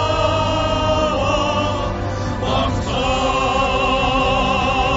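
Music with voices singing long held notes with vibrato, in an operatic or choral style; the note changes about a second in and again near three seconds.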